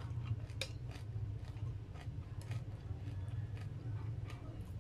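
A few sharp clicks and taps of a metal spoon against a glass bowl of soup, scattered over a steady low hum.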